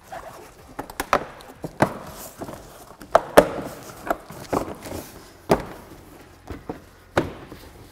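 Plastic inner fender liner being pushed and slid into place under the edge of the bumper cover by hand, knocking and clacking against it in a dozen or so irregular sharp knocks, the loudest about three and a half seconds in.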